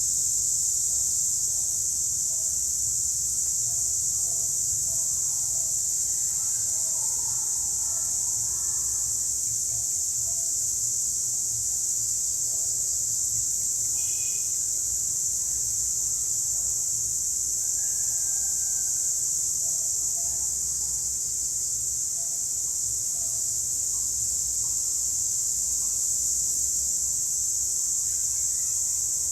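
Chorus of cicadas giving a continuous, high-pitched, steady drone, with faint short chirps now and then and a low rumble underneath.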